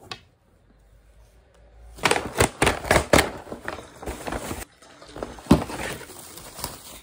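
Brown paper bag crinkling and rustling as it is handled and opened. A run of crackles sets in about two seconds in, after a single click at the start and a quieter stretch.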